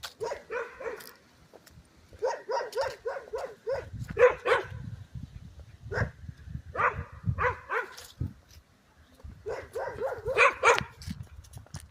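An animal calling in about five bouts of quick, short, repeated notes, several a second, with a low rumbling noise underneath from about four seconds in.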